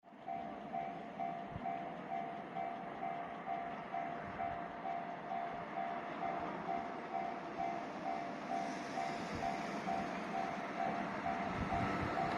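Japanese railway level-crossing warning bell ringing in steady electronic dings, about two a second, over rising rail noise that builds in the second half as a train approaches.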